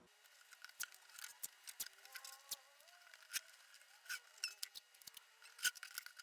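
Faint, irregular clicks and small crinkling squeaks of the guitar's sound hole being masked off by hand, about a dozen light ticks spread over a few seconds.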